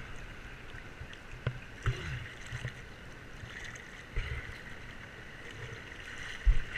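Whitewater river rushing past a kayak: a steady hiss of moving water, broken by several short, dull low thumps, the loudest near the end.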